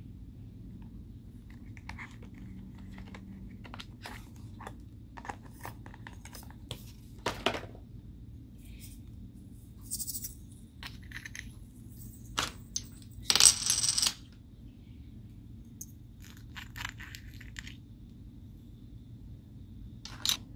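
Slime being worked by hand, with scattered soft clicks and pops, and small hard items clinking and clattering against a container. The clatter is loudest about two-thirds of the way through.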